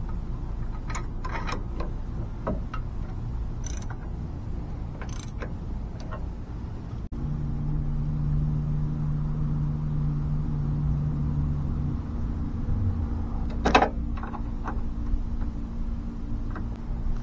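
Workshop handling noises: scattered clicks and knocks over a steady low hum. About seven seconds in, the hum turns steadier, with a held low tone, and a single sharp knock comes near the end.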